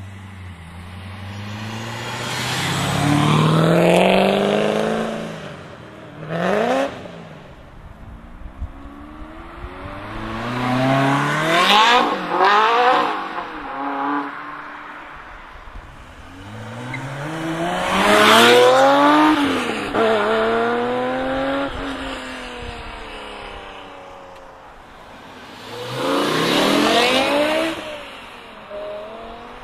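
Sports cars accelerating hard past one after another, about five in turn. Each engine revs up through the gears, its pitch climbing, dropping at a shift and climbing again. The loudest pass comes about two-thirds of the way through.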